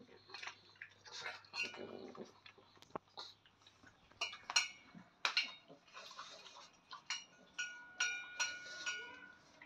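A pug puppy eating from a stainless steel bowl, its muzzle and teeth knocking the metal in a run of clinks. Several of the clinks ring on briefly, the busiest clusters coming about four to five seconds in and again around eight seconds in.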